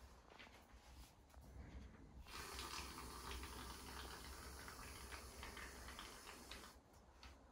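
Aerosol can of shaving foam spraying: a steady hiss of foam being pushed out of the nozzle, starting about two seconds in and stopping shortly before the end.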